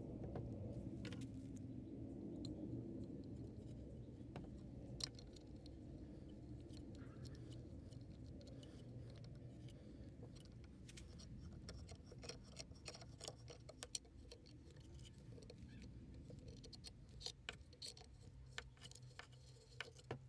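Light clicks and taps of small metal parts being handled, scattered irregularly and growing busier in the second half, over a faint steady low hum.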